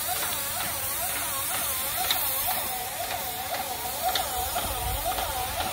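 Airless paint sprayer running at full pressure: a steady spray hiss with a rhythmic pulsing about three times a second.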